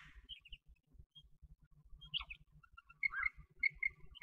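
Quail giving soft, short chirps: a few faint ones at first, then a quick run of high paired notes from about three seconds in.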